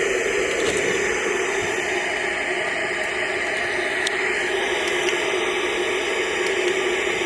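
Steady static hiss from a TV's speaker, the sound of a combo TV/VCR getting no picture or signal from its VHS player: the VCR section doesn't work.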